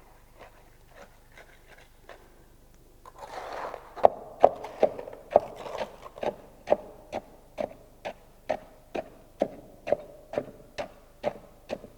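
Fresh concrete being rodded into a test-specimen mould with a tamping rod: after a brief scraping rush of concrete going in about three seconds in, steady strokes at about two a second, each a sharp knock with a short ring.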